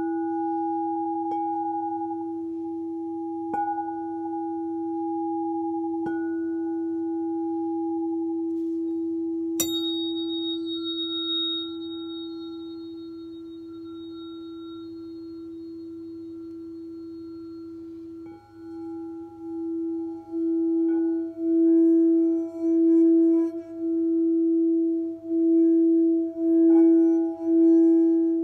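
Frosted quartz crystal singing bowl ringing with one steady low tone after a strike, tapped lightly again twice in the first several seconds. About ten seconds in, a sharp tap adds a higher ringing tone that fades over several seconds. From about eighteen seconds the bowl is rubbed around its rim with a wand, and its tone swells and pulses about once a second.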